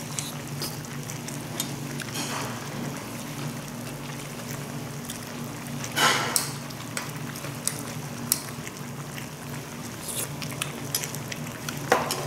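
Dakbokkeumtang simmering in a pot on a tabletop gas burner: a steady bubbling hiss under a low hum, with light clicks of a spoon against a bowl. A louder rushing noise comes about six seconds in.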